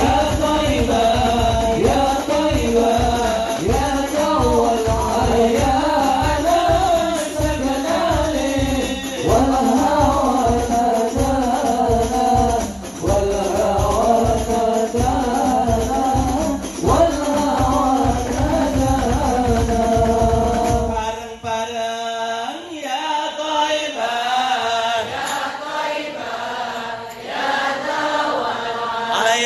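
Sholawat, an Islamic devotional song, sung in Arabic over a steady hand-drum beat. About 21 seconds in, the drums drop out and the singing carries on alone.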